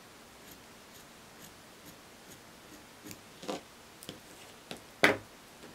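Scissors cutting through fabric: a series of short snips and clicks, faint in the first half and louder in the second, the loudest about five seconds in.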